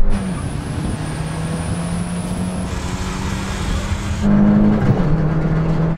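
Small four-cylinder petrol car engines pulling hard at full throttle in a drag race: a steady engine note over road and wind noise, with a faint high whine for the first few seconds. About four seconds in, a louder engine takes over and its note dips briefly once before it steadies.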